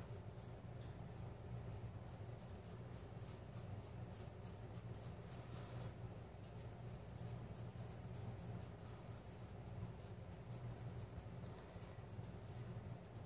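Pencil scratching on sketch-pad paper in quick short hatching strokes, several a second, coming in runs with brief lulls, as contour lines are shaded in. A faint steady low hum lies underneath.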